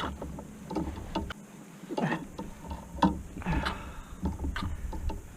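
A series of irregular clicks and knocks, with a couple of short sliding scrapes about two and three and a half seconds in.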